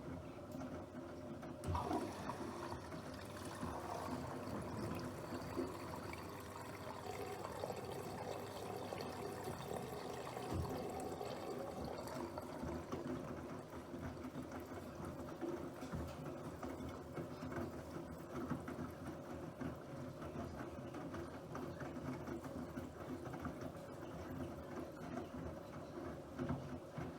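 Water running and splashing inside a Bosch Aquasensor WFP3231 washing machine during its cycle, with scattered small knocks.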